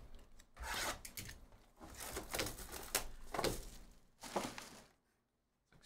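Cardboard trading-card hobby boxes being handled by hand: a run of short scrapes, rustles and light taps as the boxes are slid about and set down on a table mat.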